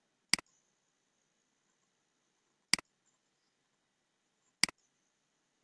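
Three sharp computer mouse clicks about two seconds apart, the middle one a quick double click, as the slides of a presentation are clicked through.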